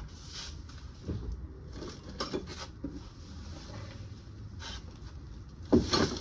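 Scattered light knocks and clatter of pots and tools being handled during transplanting, with the loudest pair of knocks near the end.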